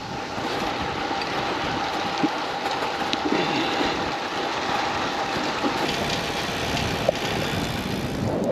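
Steady rush of wind over the microphone and rolling noise from a steel road bike being ridden along at speed, with a faint continuous whine underneath.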